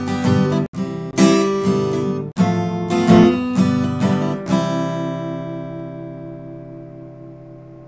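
Acoustic guitar strumming the closing chords of a song, then a final chord left ringing and slowly fading from about four and a half seconds in.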